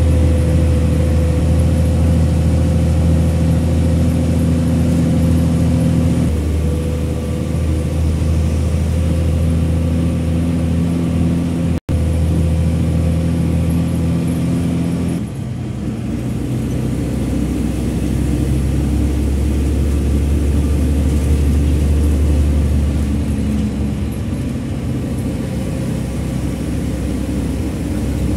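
Vehicle engine and road noise heard from inside the cabin while driving, a steady hum that shifts pitch a couple of times. It cuts out for an instant near the middle.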